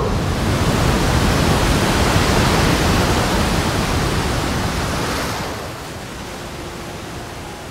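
Large ocean wave breaking: a loud, rushing crash of surf that starts suddenly and dies away after about five seconds.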